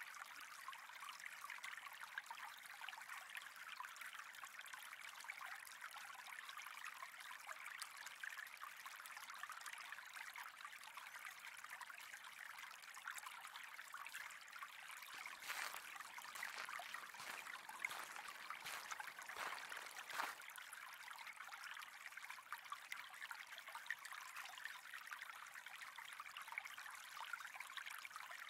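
Faint, steady trickle of running water, growing a little louder and fuller for several seconds around the middle.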